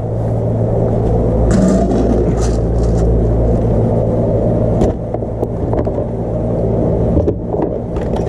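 A steady low hum of a running motor throughout, with short rattles and clinks as dry dog kibble and stainless steel bowls are handled.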